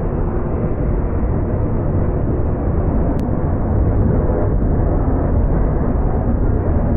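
Freight train cars rolling past close by: a loud, steady rumble of steel wheels on the rails.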